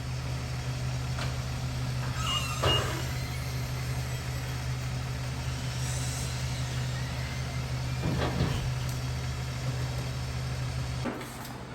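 A truck engine idling with a steady low drone, with a brief clatter about two and a half seconds in and another about eight seconds in; the drone cuts off near the end.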